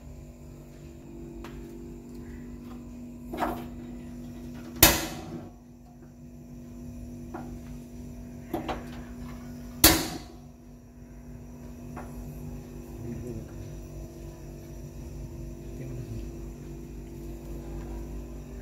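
Two sharp clicks about five seconds apart, with a couple of fainter knocks, over a steady low electrical hum that cuts off right after the second click.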